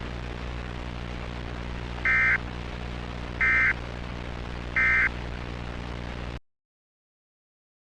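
A low, steady electronic drone with three short high beeps about a second and a half apart, then a sudden cut to silence near the end.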